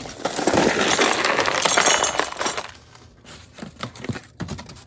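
Unpacking a stainless steel cookware pot: packing material rustling and crinkling against the pot for the first two and a half seconds, then a few separate light metallic clinks as small pieces are handled inside it.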